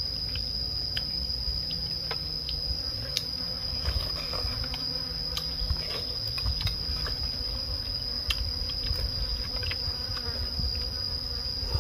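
Insects, crickets or cicadas, droning in one continuous high-pitched tone, with scattered light clicks over it.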